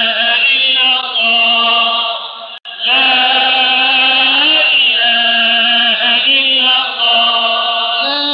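A voice chanting a melody in long, steadily held notes, with a short break and a click about two and a half seconds in.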